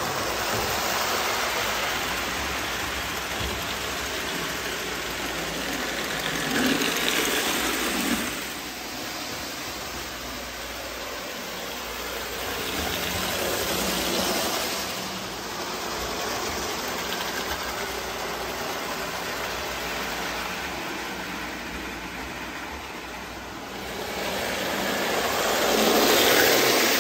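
Marx 666 die-cast toy steam locomotive with a double-reduction electric motor, pulling plastic freight cars around three-rail tinplate track: a steady motor whir and wheel rumble on the metal rails. It grows louder three times as the train passes close, loudest near the end.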